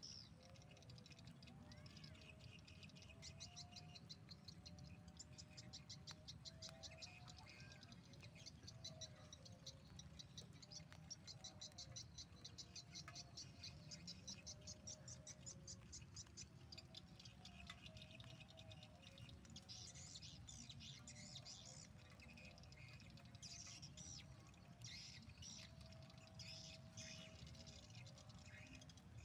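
Faint swiftlet twittering: long runs of rapid, high chirps repeating several times a second, over a low background hum.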